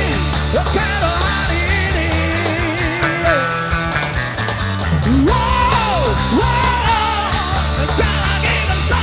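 A rock and roll band playing live, with a lead melody that slides and bends in pitch over steady bass and drums.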